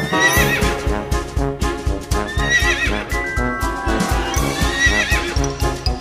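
Horses whinnying about three times over music with a steady beat.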